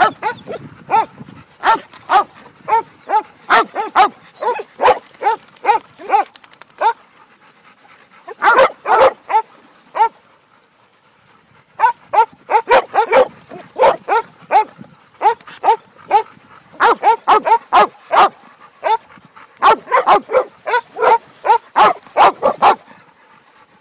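Dog barking over and over in quick runs of sharp barks, with a lull of about two seconds near the middle.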